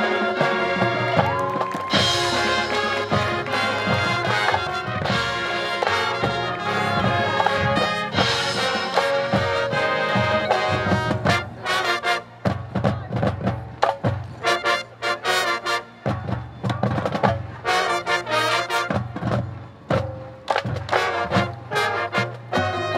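Marching band playing, led by brass: full sustained chords for the first half, then from about twelve seconds in the music breaks into short, punchy hits with gaps between them.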